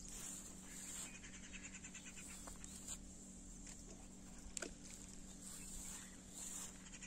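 Faint insect chirping in rapid, evenly pulsed trills, high-pitched and repeating, with one brief click about four and a half seconds in.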